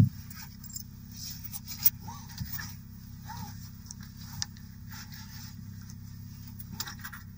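Steady low hum inside a parked car, with scattered light clicks and rustles and a sharp knock right at the start.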